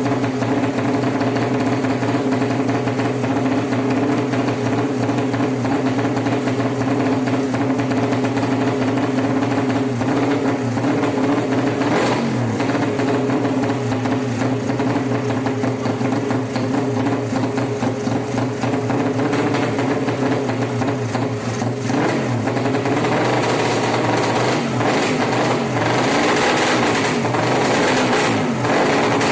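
Race-tuned 200cc Suzuki Satria FU motorcycle engine idling steadily. The throttle is blipped briefly about 12 and 22 seconds in, then revved lightly and unevenly near the end.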